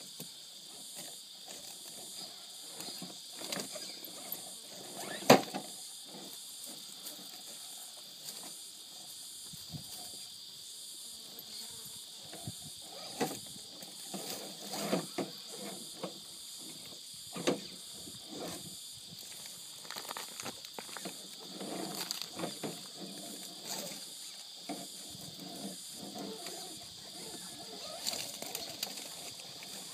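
Scale RC rock crawler with a 55-turn brushed motor working slowly over boulders: its motor whirring in short bursts while the tyres and chassis knock and clack against the rock, the sharpest knock about five seconds in. A steady chorus of insects drones throughout.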